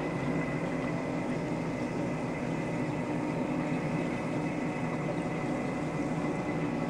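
Steady hum and rush of a reef aquarium's running equipment, its circulation pumps moving water, with a faint high whine held on one note throughout.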